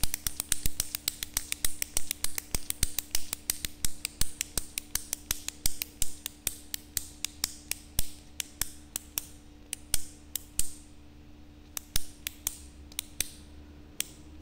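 Retractable ballpoint pen's push button clicked over and over: a fast run of sharp plastic clicks that slows about two-thirds in and thins out to a few separate clicks near the end.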